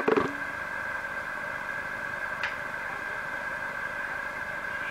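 Steady background hiss with a faint, even high hum in a small room, broken by one short click about two and a half seconds in.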